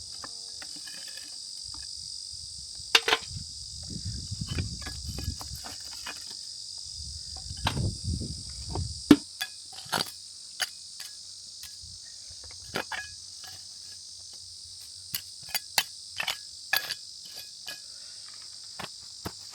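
Steady high-pitched shrilling of insects, with scattered sharp knocks and clatters from the fire pit being cleared away and some low handling rumble in the first half.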